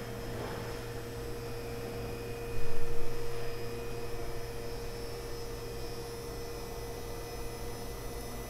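Sharp SV-2412 CNC vertical machining center powered up and running: a steady machine hum with a steady high tone over it. A brief louder bump comes about two and a half seconds in.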